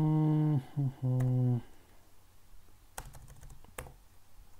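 A man's level-pitched hum for about a second and a half, broken twice, followed by a few separate keystrokes on a computer keyboard as code is typed.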